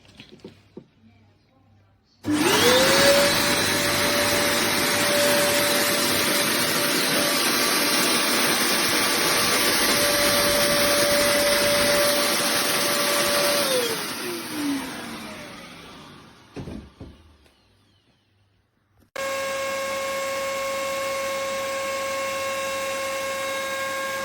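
BeamZ RAGE1800SNOW snow machine's blower motor starting about two seconds in, its whine rising quickly to a steady pitch over a loud rush of air. It runs for about eleven seconds, then the pitch falls as it winds down and fades out. After a short quiet spell a steady electric hum with several fixed tones and much less air noise starts.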